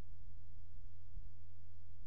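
Steady low hum with no other sound over it: the background hum of the voice-over recording.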